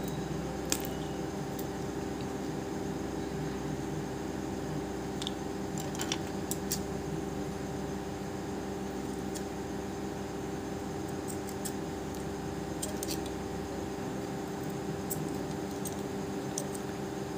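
Large scissors snipping the ends of a thread tassel: a dozen or so short, sharp cuts scattered through, some in quick pairs. A steady hum runs underneath.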